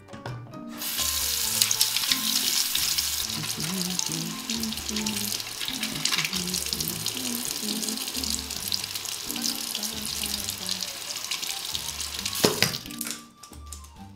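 Bathroom sink tap running, water splashing into the basin and over a pair of 3D-printed plastic hands being washed, with background music. The water stops abruptly with a sharp click near the end.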